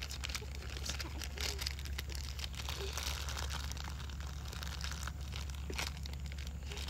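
Small plastic blind-bag packaging crinkling in irregular crackles as it is handled and worked open by hand, over a steady low rumble.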